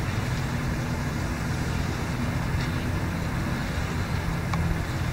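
A motor running steadily in the background with a low rumble, with a few faint light clicks.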